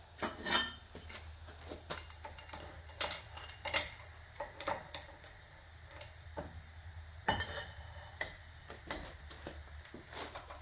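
Scattered metallic clinks and clanks of a wrench tool and steel cheater pipe handled against a John Deere hydraulic cylinder while its gland nut is tightened, with the sharpest clank about four seconds in and another near seven seconds.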